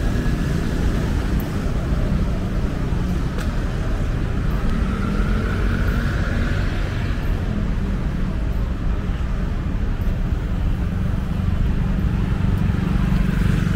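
Steady road traffic noise: a dense low rumble of passing vehicles, with one vehicle's note rising and falling as it goes by about halfway through.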